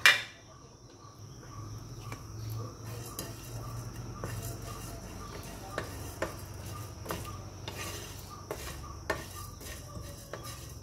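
Wooden spatula stirring and scraping whole spices (cumin, fennel and coriander seeds, dried red chillies) around a nonstick frying pan as they roast, with frequent sharp clicks of the spatula against the pan.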